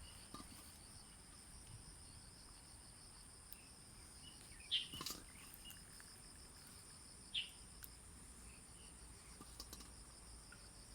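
Faint, steady high-pitched trilling of insects such as crickets, with a few brief sharp chirps or ticks near the middle.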